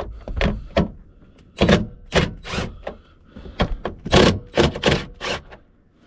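Impact driver run in a series of short bursts, about a dozen, loosening 8 mm bolts.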